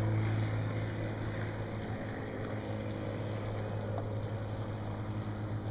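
A motor running with a steady low hum, easing off slightly about half a second in, over a wash of outdoor noise.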